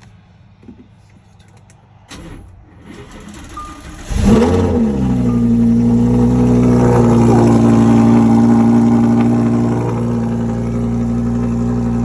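A Lamborghini engine being started: the starter cranks for about two seconds, the engine catches with a quick rev flare, then settles into a loud, steady fast idle that eases down a little twice.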